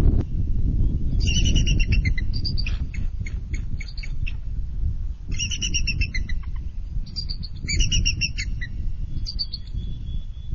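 A bald eagle pair calling in defence of the nest: three bouts of high, piping chatter that break into separate stuttering notes, plus a shorter call near the end. They are alarm calls at an intruder, likely another eagle. A steady low rumble lies under the calls.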